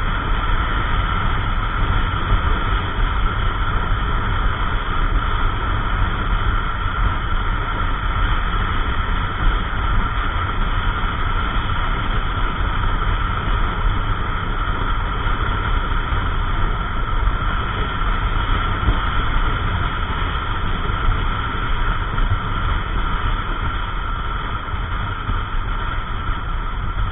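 Wind rushing over the camera's microphone on a moving Yamaha NMAX 155 scooter, with the scooter's single-cylinder engine and road noise running steadily underneath.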